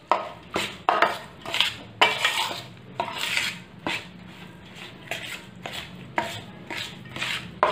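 A metal spatula scrapes and stirs in a stainless-steel bowl, about two strokes a second, mixing grated jaggery into warm ghee-roasted wheat flour for sukhdi.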